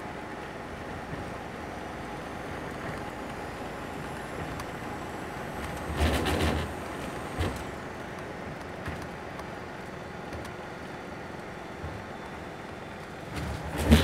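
Steady road noise of a moving vehicle, with two brief louder rushes, one about six seconds in and one near the end.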